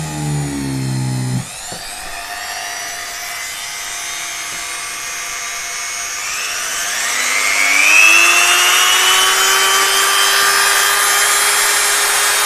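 Motor of a 130 W INGCO mini die grinder running with a drill bit, boring into wood. At first its whine falls in pitch under load and drops away abruptly at about a second and a half; then it runs steadily, rises in pitch over a couple of seconds and holds a higher steady whine.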